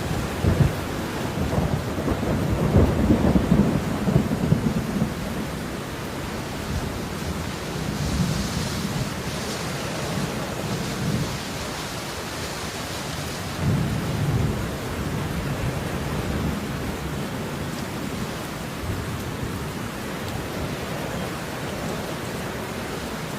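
Steady heavy rain with low, rolling thunder rumbles that swell in the first few seconds and again about fourteen seconds in.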